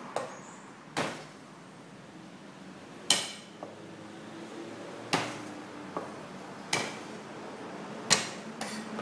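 Cleaver chopping down on a thick round wooden chopping block: about eight sharp, irregularly spaced chops, one every second or two.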